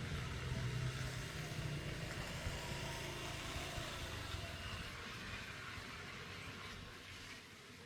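A steady low rumble with a hiss over it, fading over the last few seconds.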